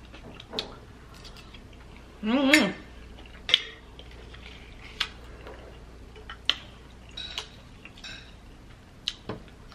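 Metal spoon clinking against a glass bowl of seafood gumbo, with scattered light clicks and taps of eating. A short hummed voice sound comes about two and a half seconds in.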